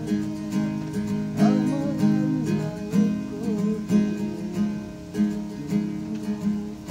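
Acoustic guitar with a capo, played by hand: strummed chords mixed with picked melody notes, a few of them sliding in pitch.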